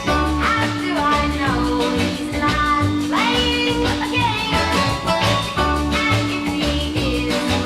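A 1963 pop record playing, with a steady bass beat under a long held note that drops out briefly in the middle and comes back.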